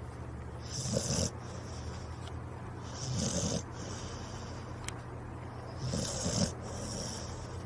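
A sleeping dog snoring: three snores, each about half a second long and spaced about two and a half seconds apart, over a steady low hum.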